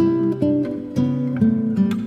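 Solo acoustic guitar playing a slow melody of plucked single notes over ringing bass notes, a new note about every half second.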